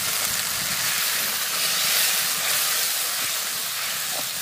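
Liquid poured into a hot iron kadai of frying chicken-leg masala, hissing and sizzling steadily as it hits the hot pan and boils up into a gravy.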